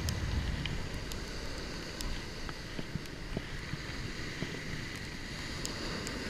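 Wind buffeting the microphone over ocean surf washing up the beach, a steady rushing noise, with a few faint clicks.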